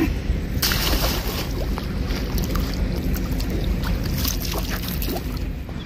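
Wind rumbling on the microphone over a hissing, splashing water noise, with scattered small clicks.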